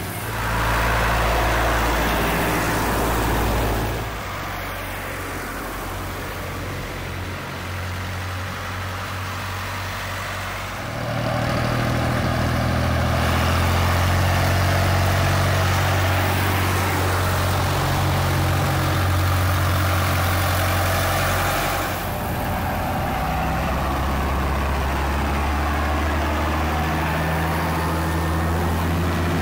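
Tractor engines running steadily as a procession of tractors drives past one after another, the engine note changing each time a new tractor comes by. Near the end a JCB Fastrac approaches.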